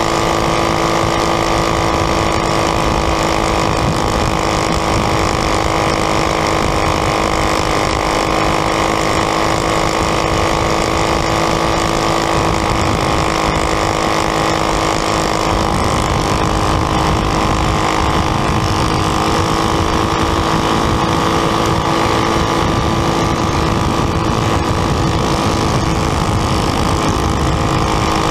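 A winged champ kart's engine running at racing speed, heard from on board. Its pitch holds steady and the level is constant and loud.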